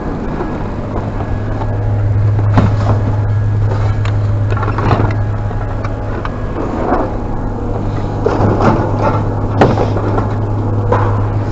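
A vehicle engine running with a steady low hum, with irregular sharp clanks and knocks over it.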